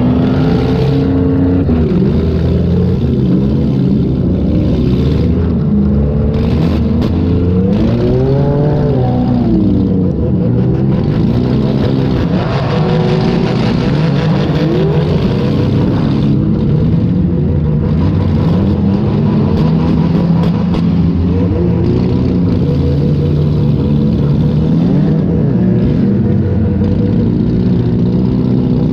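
Demolition derby car engines running hard and revving up and down again and again, heard from on board, with a few short sharp bangs from the car being hit or hitting others.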